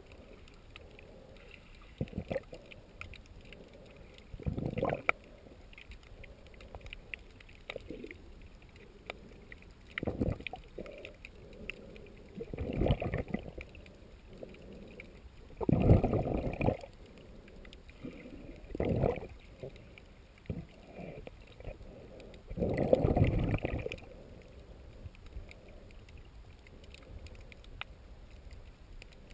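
Muffled underwater water noise picked up by a camera below the surface: a low steady hiss broken by about six irregular swooshing surges, each about a second long, a few seconds apart.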